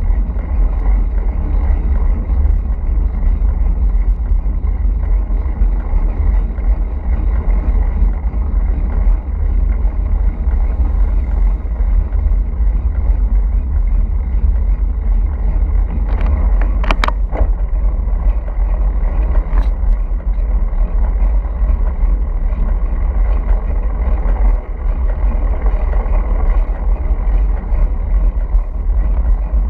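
Wind buffeting the microphone of a handlebar-mounted camera on a road bike descending at speed: a steady low rumble. A brief sharp sound stands out about 17 seconds in.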